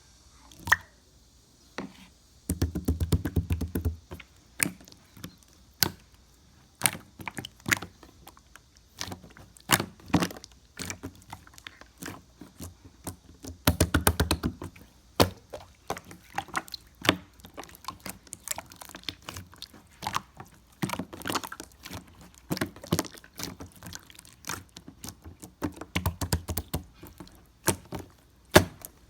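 Irregular knocks and taps of hard objects, with three short bursts of rapid tapping about three, fourteen and twenty-six seconds in.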